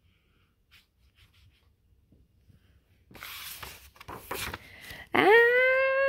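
A reader's voice acting out the wind-up to a sneeze: a couple of breathy 'ah' sounds, then about five seconds in a loud, high-pitched 'aaaah!' that rises and is held on one note.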